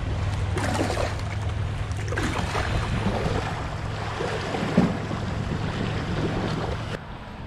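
Water sloshing and lapping against a plastic fishing kayak's hull as it glides through shallows and noses onto a sandy bank, over a steady wind rumble on the microphone. There is a sharper, louder knock about five seconds in.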